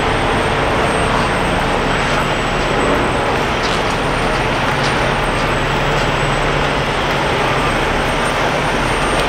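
Heavy diesel truck engine running steadily, a low drone with a faint high whine over it.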